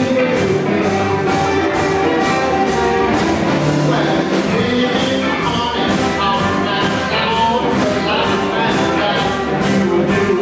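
Live electric blues band playing: electric guitars, upright bass, drums and blues harmonica, over a steady beat.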